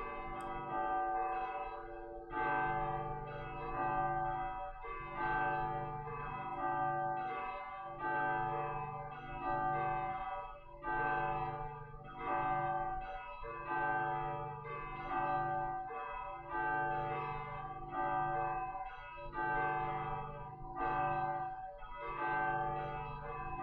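Church bell ringing in a slow, even rhythm, a stroke about every one and a half seconds, each ringing on into the next.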